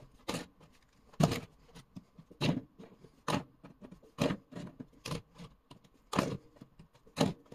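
A plastic transforming d20 die knocking down onto a table again and again as it is rolled: sharp clacks about once a second, with small clicks between.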